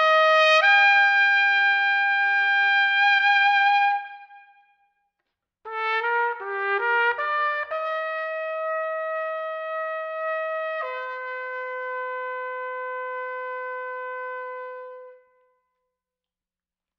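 Unaccompanied C trumpet playing a slow melody. A held note ends about four seconds in, followed by a short silence, then a quick run of short notes and two long slurred notes, the second one lower, dying away well before the end.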